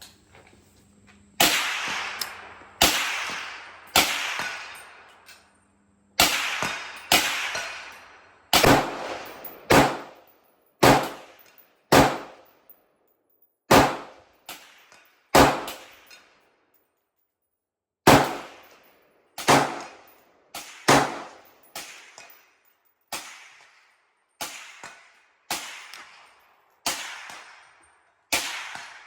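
AR-15 rifle in 5.56 being fired semi-automatically, about thirty single shots at an uneven pace, each followed by a short ringing echo. There are a couple of brief pauses between strings.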